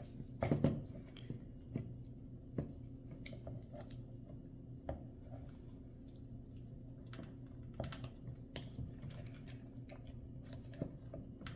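Faint, irregular small clicks and scrapes of fingers working a battery snap connector off the terminals of a 9-volt battery, over a steady low hum.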